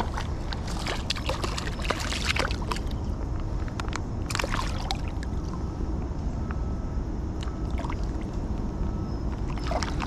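Creek water sloshing and splashing as a hooked smallmouth bass is played and landed at the water's edge, with a few sharp splashes in the first couple of seconds and again about four and a half seconds in, over a steady low rumble.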